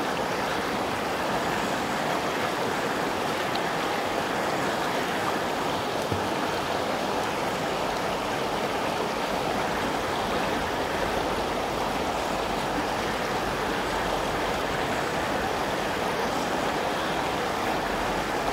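Shallow alpine river rushing steadily over rocks and gravel.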